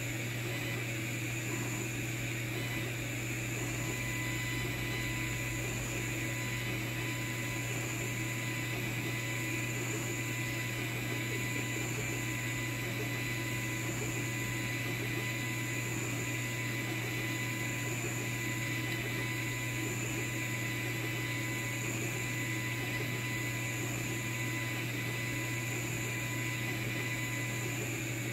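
Longer Ray 5 10 W diode laser engraver running during an engraving job: a steady hum and hiss from its fan and air assist. A thin steady whine starts a couple of seconds in and stops just before the end.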